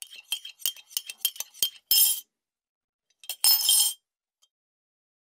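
Bright glassy clinking: about eight quick, light clinks at roughly three a second, then two louder, brighter shimmering bursts at about two seconds and three and a half seconds in.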